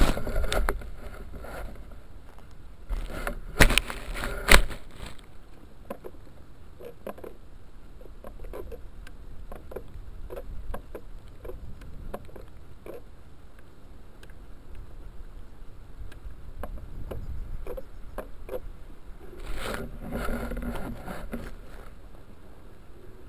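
Wind rumbling on the microphone of an action camera sitting in grass, swelling near the start and again near the end, with a few sharp knocks about three and a half and four and a half seconds in.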